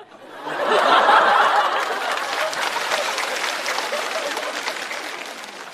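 Studio audience laughing and clapping in response to a punchline, swelling about half a second in and then slowly dying away.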